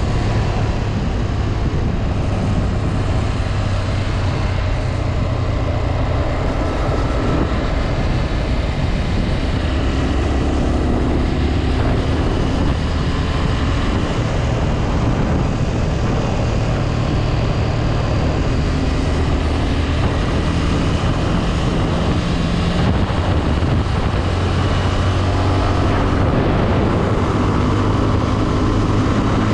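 Honda CB 250F Twister's single-cylinder engine running steadily under way, its pitch rising and falling a few times with the throttle, over a steady rush of wind noise.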